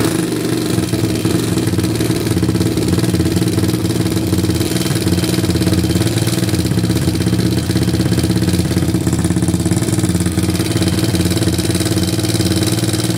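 Single-cylinder Grom-clone motorcycle engine, freshly rebuilt with a 212cc four-valve big bore kit, running steadily on its first start. It runs with some clanking, which the owner takes as a sign that the valve clearance needs checking again.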